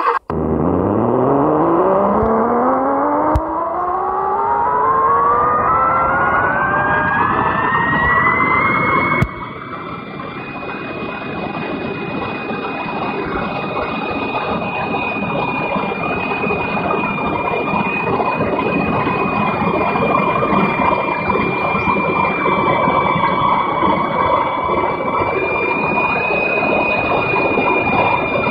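An electric motor starts up with a whine that rises in pitch for about nine seconds, then runs at a steady high whine over a rushing noise, dropping suddenly in loudness about nine seconds in.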